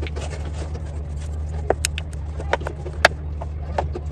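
Spoon stirring thick gram-flour batter in a bowl, with scattered sharp clicks of the spoon knocking against the bowl, over a steady low hum.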